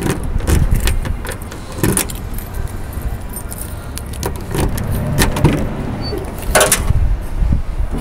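Car keys jangling in hand with scattered small clicks over a steady low rumble. A louder clack with a short ring comes about six and a half seconds in, as the 2007 Toyota Yaris's trunk lid is released and opens.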